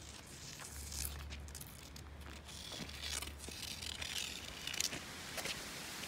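Footsteps and rustling through dry grass and brush, with irregular crackles and crinkles, over a low rumble that comes and goes.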